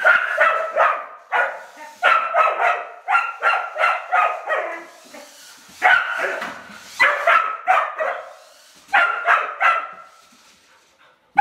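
Rough collie barking in quick bouts of short, high barks with brief pauses between, dying away near the end: excited barking at a moving radio-controlled toy car.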